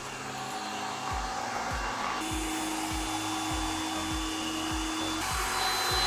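Xiaomi Mijia Ultra Slim robot vacuum running, a steady fan hiss with a whine. It steps up sharply in power about two seconds in and again about five seconds in, reaching turbo mode near the end. A steady background music beat starts about a second in.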